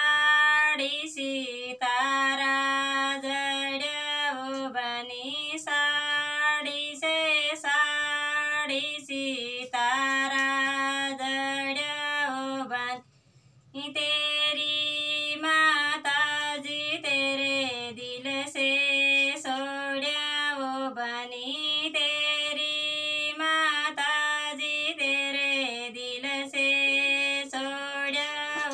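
A female voice singing a melody solo, with little or no accompaniment and a brief pause about thirteen seconds in.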